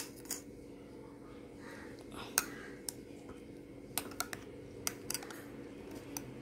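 Metal spoon stirring butterfly pea flower tea in a glass tumbler, clinking against the glass in scattered light ticks.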